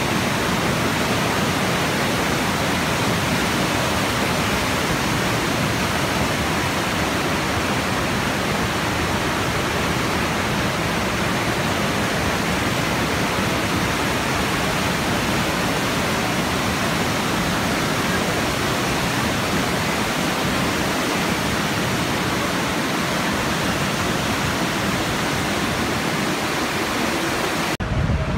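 Fast, silt-laden mountain river rushing over rocks in a steady, unbroken roar of white water. Near the end it cuts to wind buffeting the microphone.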